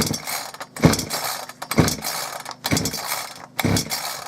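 Gardenline GLPC 41 two-stroke petrol chainsaw being pull-started: five hard yanks on the recoil starter cord, about one a second, each cranking the engine over with a rasp. The engine does not catch.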